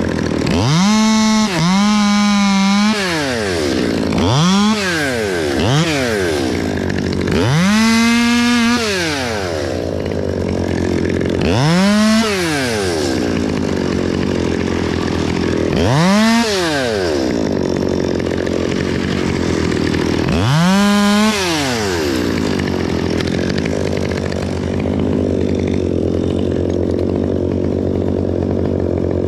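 Stihl MS 200T two-stroke top-handle chainsaw idling, opened up to full speed about seven times in the first 22 seconds, each time rising in pitch, holding briefly and dropping back to idle, then left idling.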